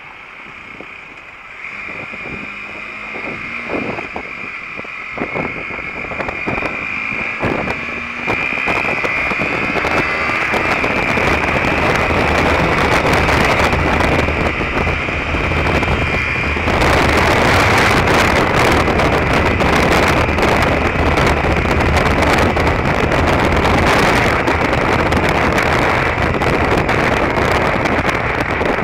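Derbi Terra Adventure 125 motorcycle's single-cylinder four-stroke engine pulling away and accelerating, getting louder over the first ten seconds. From about halfway, wind rushing over the microphone at speed becomes the loudest sound.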